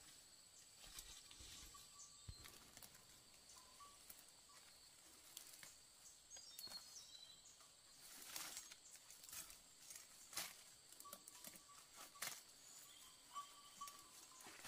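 Near silence: faint outdoor ambience with scattered soft clicks and rustles, a few of them a little louder in the second half.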